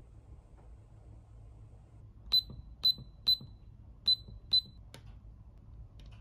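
Electronic beeps from a bedside alarm-clock control panel as its buttons are pressed: five short, high beeps in quick succession, then a couple of fainter clicks near the end.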